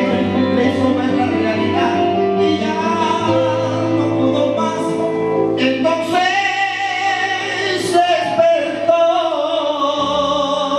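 Live salsa band music with a male lead singer singing long, wavering held notes over sustained chords.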